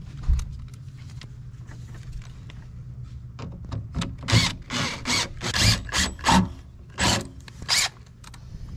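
A hand driver turning the screw that holds a plastic speaker adapter ring to a van's door panel: a knock about a second in, then from about halfway a run of short scraping, clicking strokes, about two a second, as the screw is driven home.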